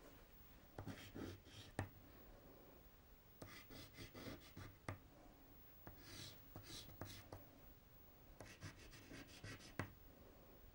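Faint scratching of a white pastel stick stroked across paper while highlights are laid in. The strokes come in four short clusters, with a few sharper ticks as the stick meets the paper.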